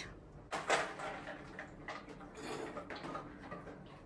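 Light clicks and knocks: two sharp ones about half a second in, then fainter, irregular ticks and clatter.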